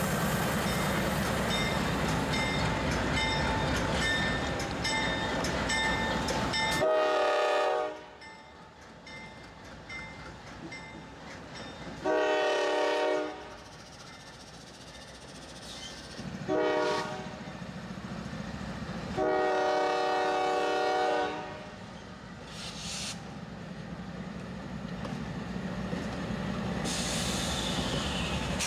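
Norfolk Southern diesel locomotives rumbling past close by. Then a locomotive horn sounds four blasts, long, long, short, long: the grade-crossing signal, over the quieter running of the engines, which grows louder again near the end.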